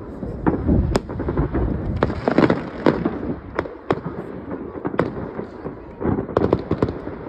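Many distant fireworks going off at once: a continuous crackle of pops and bangs, with louder single cracks about a second in, near three seconds and at about five seconds.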